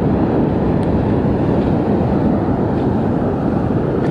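Steady, loud rush of beach wind buffeting the microphone mixed with the roar of surf, even throughout with no distinct events.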